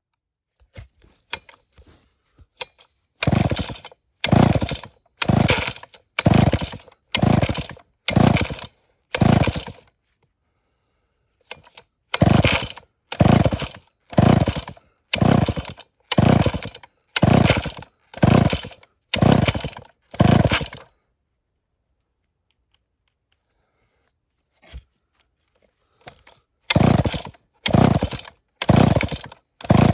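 Homelite Super XL-923 82cc chainsaw sounding in loud, evenly spaced bursts, about three every two seconds, with silence between them. The bursts stop twice, for about two seconds and then about five, before starting again.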